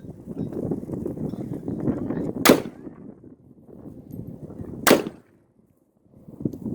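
Two single rifle shots, about two and a half seconds apart, the first about two and a half seconds in, each a sharp crack with a short echo, over a low rumbling noise.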